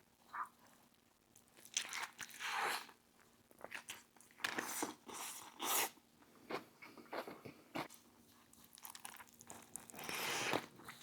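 A person biting and chewing a Philly cheesesteak sandwich on a toasted roll, packed with vegetables and pickles, in irregular wet smacks and crunches.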